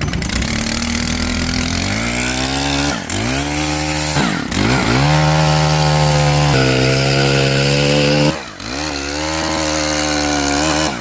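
Chainsaw running at high revs, cutting branches. Its engine note drops briefly about three times and picks up again.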